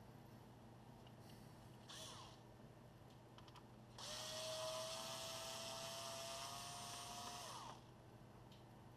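Small electric screwdriver motor running: a brief blip about two seconds in, then a steady whirr of about three and a half seconds whose pitch creeps slowly upward before it cuts off.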